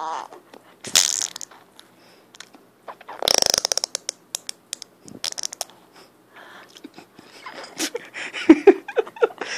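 A sputtering fart sound about three seconds in: a run of rapid pops with a low buzz, lasting under a second, after a shorter noisy burst about a second in. Near the end come a baby's short, high vocal sounds.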